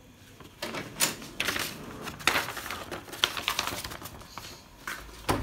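A printed sheet of paper rustling and crackling as it is handled and turned, in irregular bursts, with a sharper click near the end.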